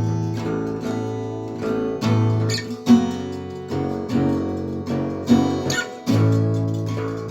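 Acoustic guitar being strummed, chords struck every second or so and left to ring between strums.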